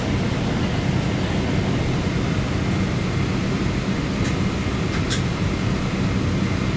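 Steady low rumble and air-conditioning hiss inside a Boeing 777's passenger cabin as the airliner moves on the ground, with two brief ticks about four and five seconds in.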